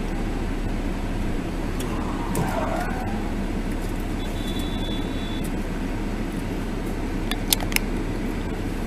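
Car engine and road noise heard from inside the cabin, a steady hum and rush, with a few sharp clicks near the end.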